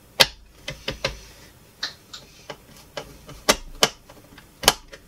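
Sharp, irregular clicks and taps of a circuit board being seated and screwed back into the plastic base of a Technics SL-J110R turntable with a screwdriver, the screwdriver tip and board knocking against the plastic chassis.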